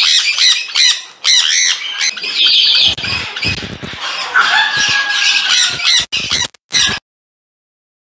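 Parrots squawking loudly, several harsh screeches overlapping one another; the sound cuts off abruptly about seven seconds in.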